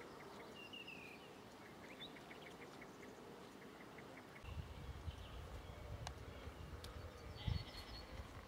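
Faint evening birdsong in open country: scattered short chirps and a quick run of small ticking notes, about five a second. About halfway through, a low rumble comes in underneath, with a soft thump near the end.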